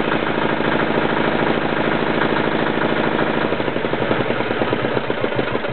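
Suntom 186CF 406cc single-cylinder diesel engine idling steadily, then shut off about three and a half seconds in, its firing slowing as it runs down to a stop near the end.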